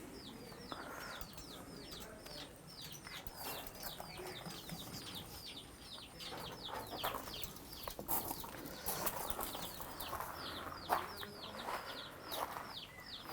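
Birds calling: a steady run of short, high chirps, each falling in pitch, about three a second, with a few lower, louder calls of farm fowl among them.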